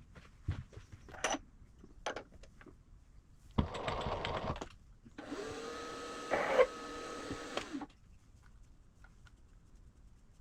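A few light metal clicks and clanks, then about a second of rushing noise. After that a small electric motor runs steadily for about two and a half seconds and stops abruptly, with a brief louder sound in the middle of the run.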